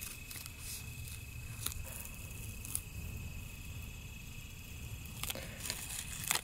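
Quiet outdoor background with a steady high insect drone and a low rumble. A few faint scattered clicks and crackles come from something being slowly peeled off a watercolor painting.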